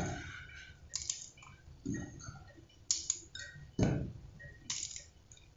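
Light clicks and taps, about one a second, as pieces of chopped walnut are picked from a small metal bowl and dropped into a glass jug.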